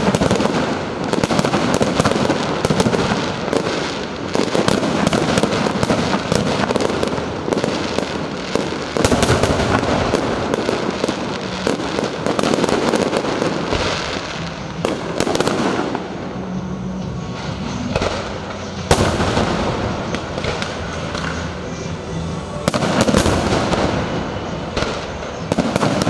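Fireworks display: a dense, continuous barrage of shell bursts and crackle. It thins somewhat past the middle, with one sharp loud bang, then builds again near the end.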